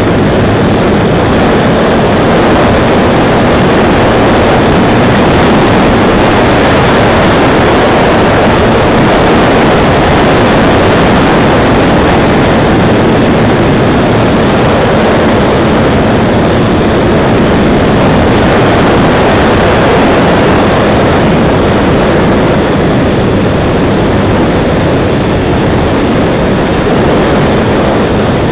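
Electric motor and propeller of a FunCub radio-controlled model plane running steadily in flight, mixed with rushing airflow, heard loud and close from a camera mounted on the plane.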